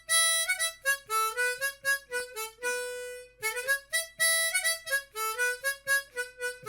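Harmonica music: a quick melody of short, separate notes moving up and down.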